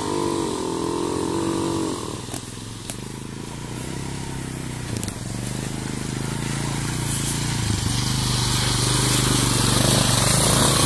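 ATV engines running. A wavering engine note rises and falls for the first two seconds and drops off. Then a nearer quad's engine grows steadily louder as it comes up and passes close by.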